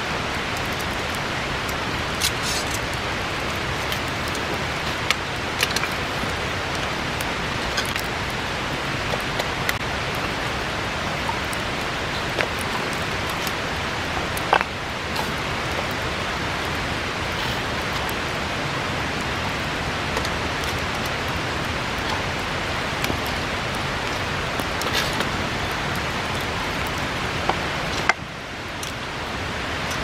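Steady rushing of a river, with scattered sharp crackles and pops from a burning wood bonfire. Near the end the rushing drops suddenly and then swells back.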